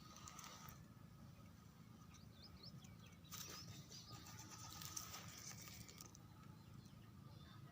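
Faint, scattered high cheeps of young chicks, with a burst of hissy noise about three seconds in.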